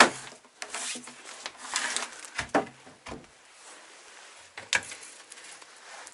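Household objects being handled and rummaged through: a sharp knock at the start, then scattered clicks, knocks and rustling.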